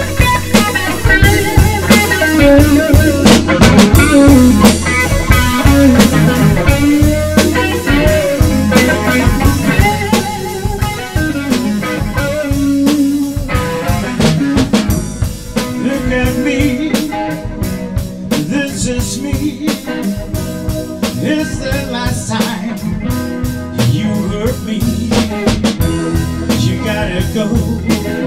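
A blues-rock band playing live: electric guitar with bending notes over a drum kit keeping a steady beat.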